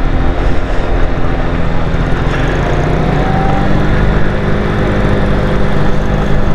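Docker Milano 49cc four-stroke scooter engine running steadily while being ridden, over an even rushing noise.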